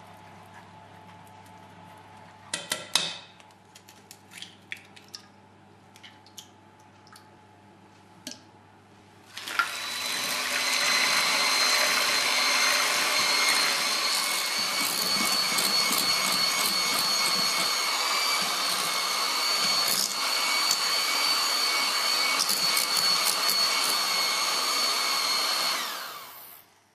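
A few light clicks and knocks, then an electric mixer switches on about nine seconds in and runs steadily with a high whine until it is switched off near the end, beating egg whites for the soufflé.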